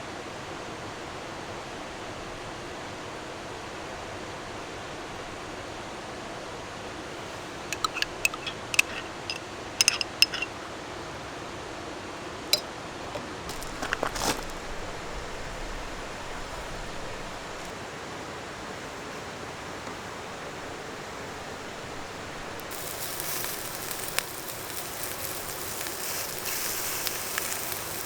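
Steady rush of a valley stream, with a few sharp clinks of small hard objects about eight to ten seconds in and two more a little later. Near the end a higher, crackly hiss comes in over the stream.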